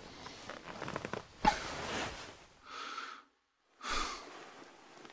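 Restless breathing of a person lying awake unable to sleep: three heavy breaths or sighs. Before them come light rustling and a sharp click about a second and a half in.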